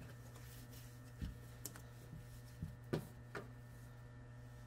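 Quiet shop room tone: a steady low hum with a few faint, scattered taps and clicks, about five over a couple of seconds.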